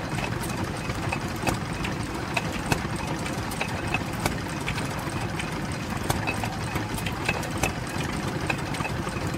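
1935 Petter Handyman two-stroke stationary engine, a 3 hp petrol/paraffin engine, running steadily, with sharp knocks at uneven intervals about once a second.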